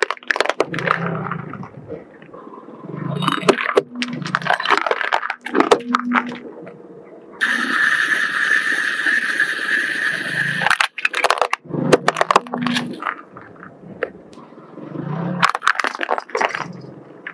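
Objects crunching, crackling and snapping as a car wheel rolls over and crushes them, in clusters of sharp snaps. A steady hiss runs for about three seconds in the middle.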